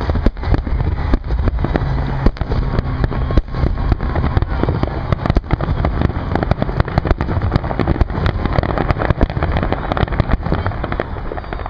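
Fireworks finale barrage: a rapid, unbroken string of shell bursts and crackles over a continuous low rumble, easing off a little near the end.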